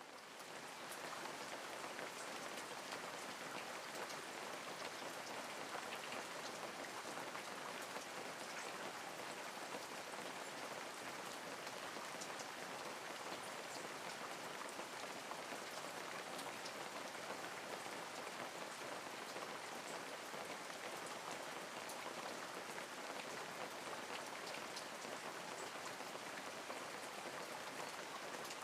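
Steady rain: an even hiss of falling rain with scattered sharper drop ticks, fading in over the first second.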